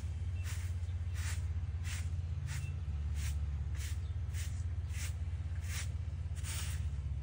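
Broom sweeping the ground in regular swishing strokes, about three every two seconds, over a steady low rumble.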